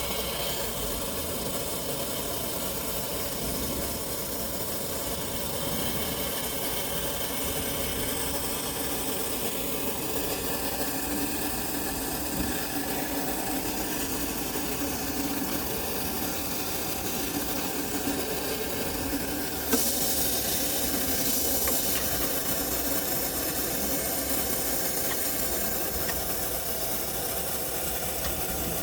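Steady hiss over a car engine idling. About two-thirds of the way through there is a sharp click, and the hiss turns louder and brighter.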